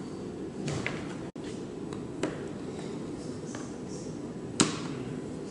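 A few short, sharp clicks and snaps as a utility knife cuts into a hard plastic doll part, the loudest about four and a half seconds in, over steady low background noise.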